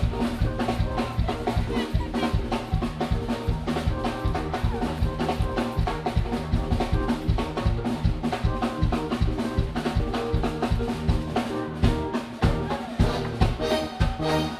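Live band playing soca music, with a steady drum-kit beat and bass line under keyboards and electric guitar.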